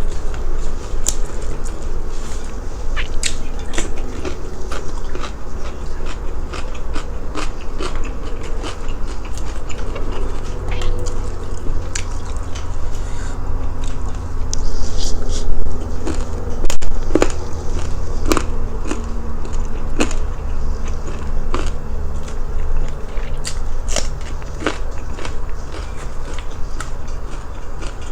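Close-up biting and chewing of crispy, fatty food: irregular sharp crunches and crackles, a few louder bites in the middle, over a steady low hum.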